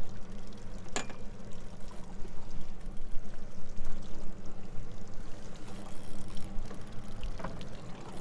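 Water splashing and lapping against the hull of the Sea Hunt Gamefish 30 over the steady low hum of its outboard engines running at trolling speed, with a sharp click about a second in.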